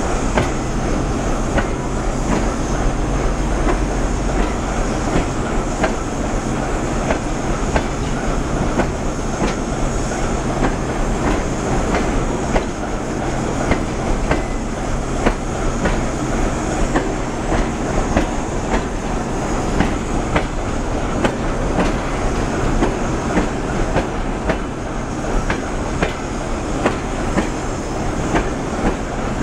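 Double-decker passenger coaches rolling slowly past as the train pulls out: a steady rumble of steel wheels on rail, with frequent sharp clicks and clacks as the wheels cross rail joints.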